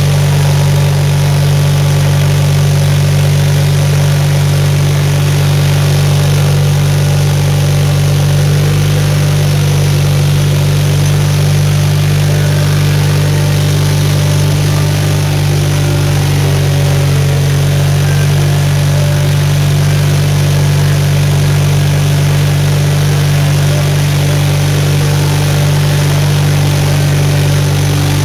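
520-SC Snow Chucker's engine running steadily with a low, even drone while the machine is driven, heard from inside its cab.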